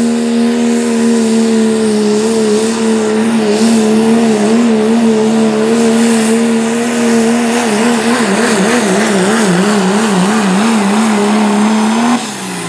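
Diesel engine of a Dodge Ram Pro Stock 4WD pulling truck, held at full throttle as it drags the sled. Its pitch holds steady, then wavers up and down from about two seconds in, most strongly between eight and ten seconds. Near the end the revs drop sharply.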